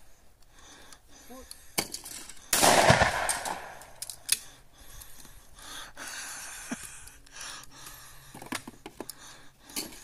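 A shotgun fires at a clay: one loud blast about two and a half seconds in, trailing off over about a second. A couple of sharp cracks sound shortly before and after it.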